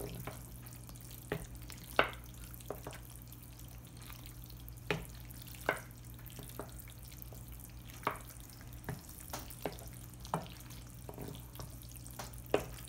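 A wooden spoon stirring thick macaroni and cheese with diced chicken in a large ceramic baking dish: wet stirring with irregular sharp knocks of the spoon against the dish, over a steady low hum.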